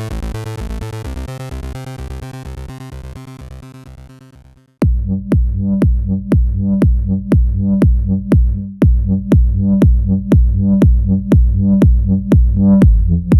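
Electronic music: a synthesizer passage fades out over the first five seconds, then a new track with a steady, heavy beat starts abruptly.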